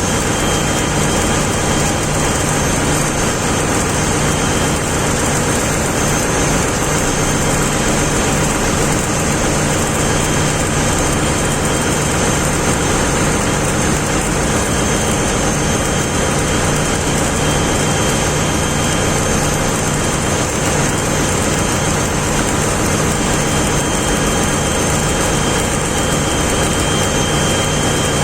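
Steady, loud drone of shipboard machinery: a constant low hum with a couple of thin, high, steady whines over a wide even noise.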